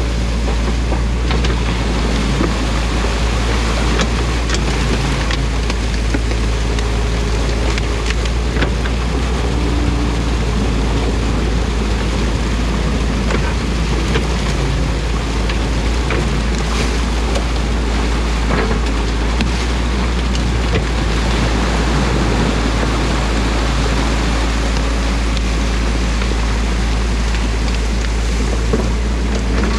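Compact excavator's engine running steadily as its bucket tears sticks and mud out of a beaver dam, with scattered knocks and snaps, and muddy water rushing out through the breached dam.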